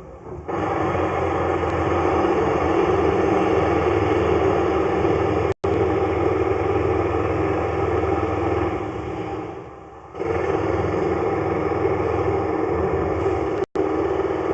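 A motor or engine running steadily with a low hum. It starts about half a second in, fades away near the ten-second mark, comes back about a second later, and cuts out for an instant twice.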